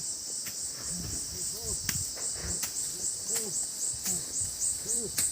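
Insects, crickets by their sound, chirping in a steady high-pitched pulsing drone, about three pulses a second, with a few sharp clicks over it.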